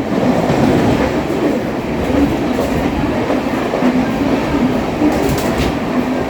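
Deccan Queen express train passing at speed: a loud, steady rumble and clatter of wheels on rails.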